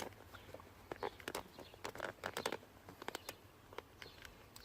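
Faint, irregular small clicks, taps and rustles of the phone camera being handled and set down.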